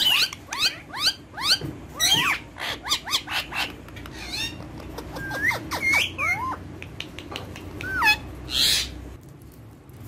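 Indian ringneck parakeets chattering in quick chirps and whistles that sweep up and down in pitch, with one harsher screech near the end.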